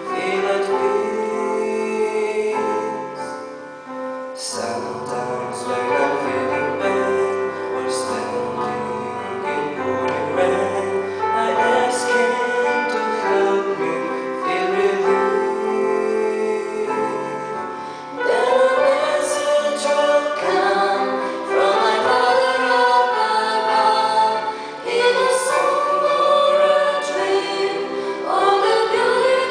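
Christian song sung live into microphones: a young man sings the lead alone, and two women join him in three-part vocal harmony about 18 seconds in, after which the singing is fuller and louder.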